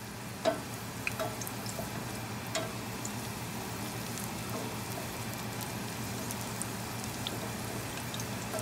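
Garlic cloves frying in oil on low heat, turning golden brown: a steady, soft sizzle with scattered crackles and pops, a few sharper ones in the first three seconds.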